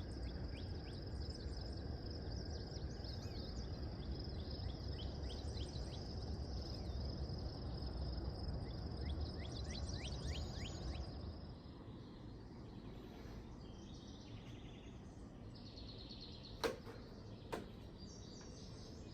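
Outdoor ambience: a steady high insect trill with many quick falling chirps over a low rumbling noise. About twelve seconds in, this drops away to quieter bird calls, with two sharp clicks near the end.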